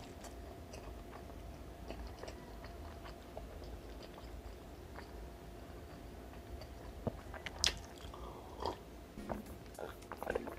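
Faint mouth sounds from a man nursing a bitten tongue: quiet lip smacks and a few sharp clicks, most of them in the second half. Near the end a glass mug of water is lifted to drink.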